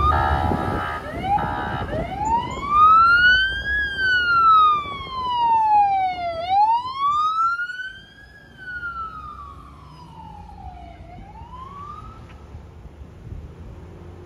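Emergency vehicle siren: quick rising yelps with two short horn blasts in the first two seconds, then a slow wail rising and falling about twice. It drops much fainter about eight seconds in and stops near the end.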